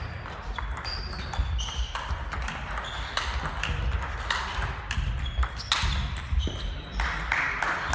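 Table tennis balls clicking off bats and tables in quick, irregular succession during rallies, each click with a short high ping, on this and neighbouring tables.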